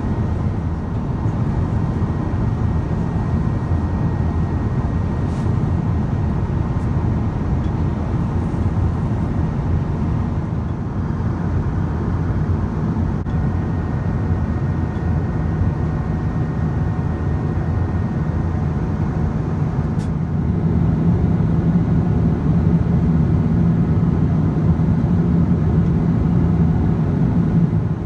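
Steady cabin noise of a Boeing 777-200ER airliner at cruise: the even rush of jet engines and airflow, a little louder and deeper in the last third.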